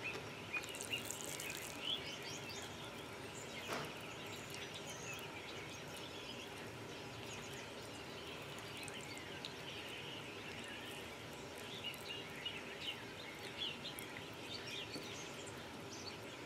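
Faint steady room noise with birds chirping here and there in the background, and one soft knock about four seconds in.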